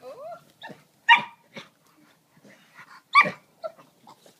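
Two dogs play-fighting, one giving two loud, sharp barks about two seconds apart, with softer short calls between.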